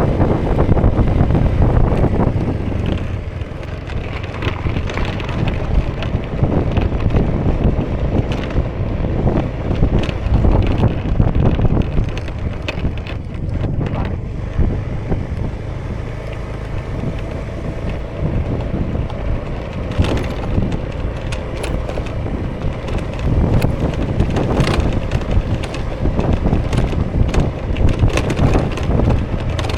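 2018 Honda Vision scooter's small single-cylinder engine running steadily while riding, with heavy wind buffeting on the action camera's microphone and scattered short knocks from the road.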